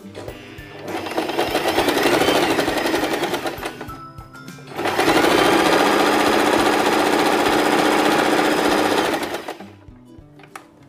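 Domestic sewing machine stitching a straight seam in regular stitch, in two runs of rapid needle strokes: the first speeds up and slows over about three seconds, then after a short pause a steady run of about five seconds that stops near the end.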